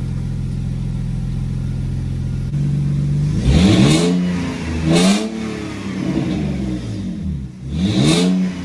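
BMW E46 323i's 2.5-litre M52 inline-six, its VANOS unit freshly rebuilt, idling steadily, then revved in several quick throttle blips from about two and a half seconds in, the engine speed rising and falling each time.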